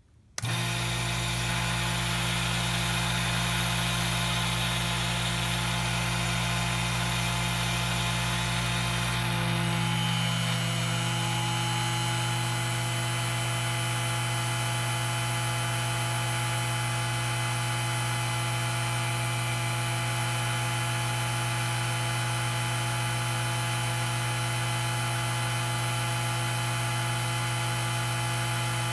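Festool Vac Sys vacuum pump running with a steady electric hum. Its tone shifts slightly about ten seconds in, then holds steady.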